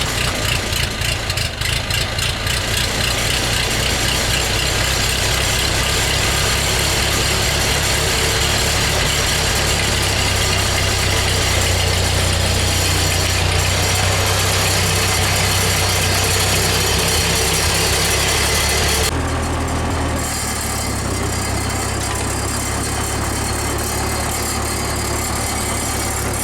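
1947 Ford 2N tractor's four-cylinder flathead engine running just after starting: a little uneven for the first couple of seconds, then idling steadily. About 19 seconds in it settles to a slightly quieter, duller note.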